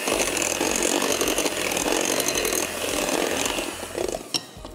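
Electric hand mixer running steadily, its beaters whipping a chocolate, butter and egg-yolk batter in a glass bowl; it winds down near the end.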